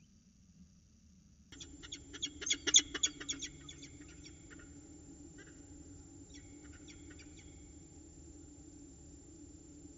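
Peregrine falcon alarm call at an intruder: a rapid string of about a dozen loud calls over some two seconds, starting about a second and a half in, followed by a few fainter, scattered calls.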